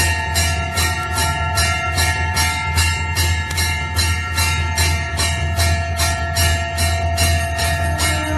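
Temple bell rung rapidly, about three strikes a second, its tones ringing on between strikes, over a steady low drone.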